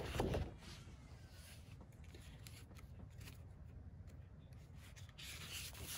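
Sheets of scrapbook cardstock being handled: a louder paper rustle at the start as a sheet is lifted and moved aside, then faint rustling and sliding of paper on the desk, with a little more rustle near the end.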